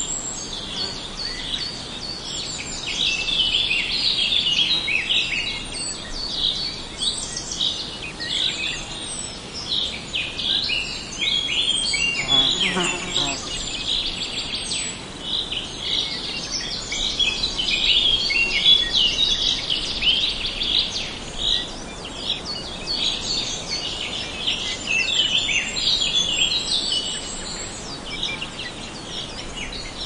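A dense chorus of many small birds chirping and calling over one another. A single lower-pitched call with several overtones stands out briefly about twelve and a half seconds in.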